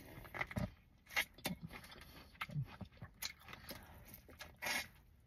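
Someone biting and chewing a boiled corn on the cob: faint, scattered crunches and mouth clicks.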